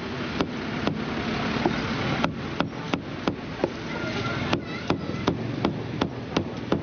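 Cleaver chopping meat on a chopping block: a run of sharp strikes about three a second, with a pause after the first two, over the murmur of a busy market.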